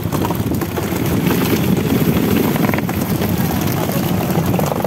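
Steady low rumble of a fishing boat's engine running, with wind on the microphone.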